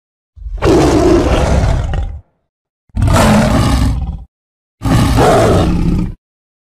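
Ti-liger, a tiger–liger hybrid big cat, roaring three times, each roar about a second and a half long with short silent gaps between.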